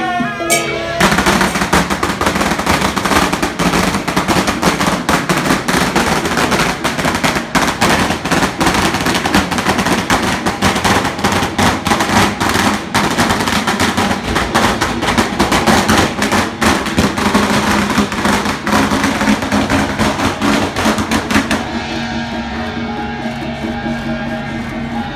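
A long string of firecrackers crackling rapidly and without a break for about twenty seconds, then stopping, set off for a passing deity palanquin. Processional music goes on underneath and is heard alone once the cracking ends.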